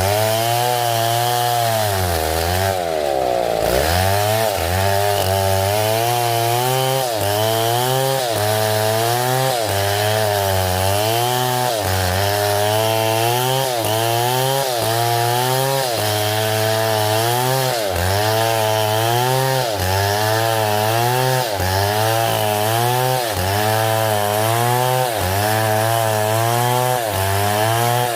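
Two-stroke chainsaw running under load while cutting wood, its engine note sagging and picking back up about once a second as the chain bites. There is one deeper drop in revs about 3 seconds in.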